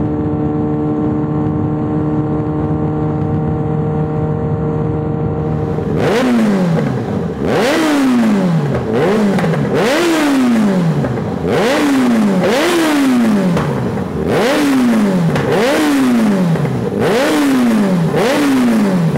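Yamaha XJ6N's inline-four engine with an Arrow full exhaust idling steadily, then from about six seconds in blipped over and over in quick revs. Each rev drops back with crackles and pops from the exhaust as it falls back.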